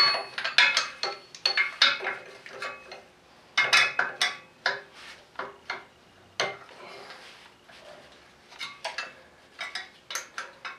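A wrench clinking and tapping irregularly against metal as the fan pulley bolts are worked loose, with short metallic rings after some strikes.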